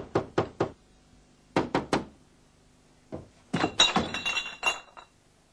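Knocking on a door: a quick run of sharp knocks, then three more about a second and a half in. Near the end comes a clatter of clicks with a brief metallic ring as the door is opened.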